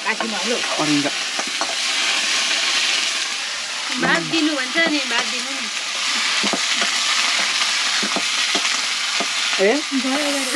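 A steady sizzling hiss throughout, with short bits of voice at the start, in the middle and near the end.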